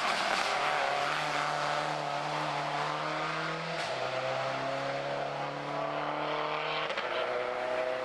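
Subaru Impreza WRX STI rally car's turbocharged flat-four engine pulling hard as it drives away, with a sudden drop in pitch at an upshift about four seconds in, marked by a brief crack, and another upshift near the end.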